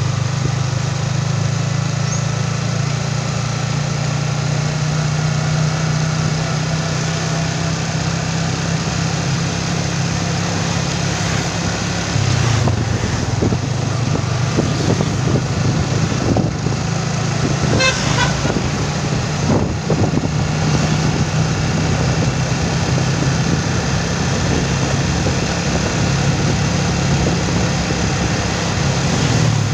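Small motorcycle engine running steadily while riding, its note shifting a little under halfway through, with a brief horn toot about two-thirds of the way through.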